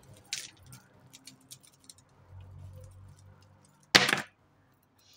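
Metal costume jewellery clinking and ticking as hands sort through a heap of chains, bangles and beads, with a short, louder rattle about four seconds in as a long silver-tone chain necklace is pulled out of the pile.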